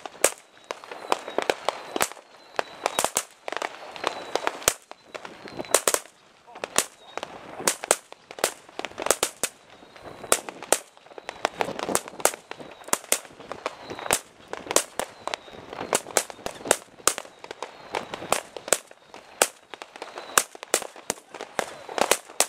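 Firecrackers going off in rapid, irregular succession: several sharp bangs a second, some loud and close, others fainter.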